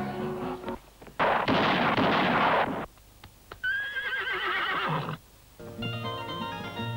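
Horse whinnying: a high, wavering neigh lasting about a second and a half, just after the middle. A burst of rough noise comes before it, and music breaks off before the noise and returns near the end.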